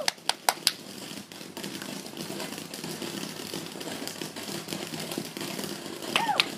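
Ground fountain firework spraying sparks: a few sharp pops in the first second, then steady hissing and crackling. A short high rising-and-falling tone comes near the end.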